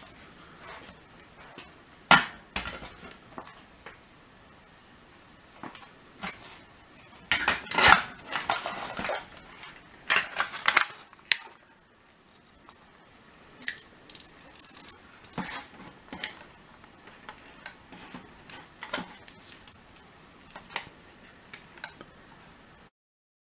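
Thin aluminium recessed-light can housing being handled and fitted together: scattered sheet-metal clanks and rattles, busiest about a third of the way in, stopping just before the end.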